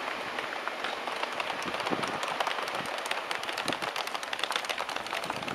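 Regional train of DB coaches rolling away from the platform: a steady rushing noise with dense, irregular clicking and clattering of wheels over the rails, growing busier about a second in.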